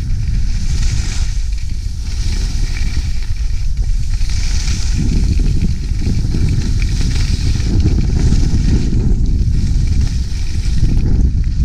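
Skis sliding and carving on snow, a hiss that swells and fades with each turn every second or two, over a heavy rumble of wind on the action camera's microphone.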